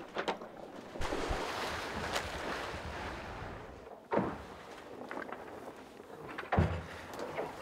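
On-deck sound of a becalmed ocean-racing yacht: a soft, even hiss of water and air with no wind in the sails, broken by a knock about four seconds in and a thump near the end.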